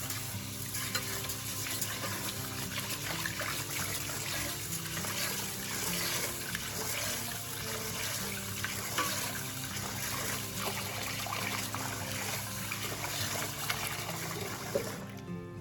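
Tap water running steadily into a kitchen sink, a hiss with small splashes, cutting off shortly before the end, over background music.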